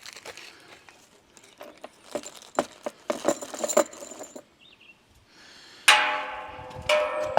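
Metal pieces clicking and clinking as conduit flex clips and a metal pet-fence panel are handled and fitted. About six seconds in there is a sharp metallic clang that rings on, and a second one a second later.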